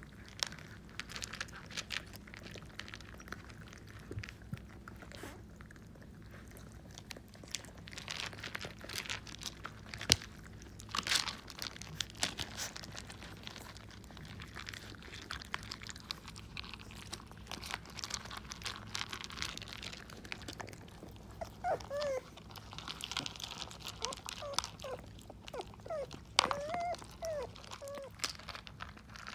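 Boxer puppies crunching and chewing dry kibble, with many sharp clicks and clatters of the pieces. Short, wavering, high whimpers from the puppies come in about two-thirds of the way through and again near the end.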